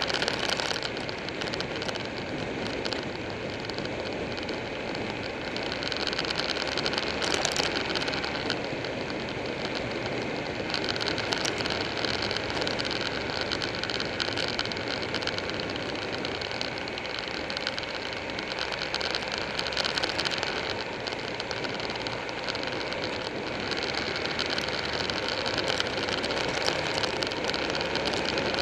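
Motorcycle riding at speed: wind rushing over an on-board camera microphone, with engine and road noise underneath, swelling and easing a few times.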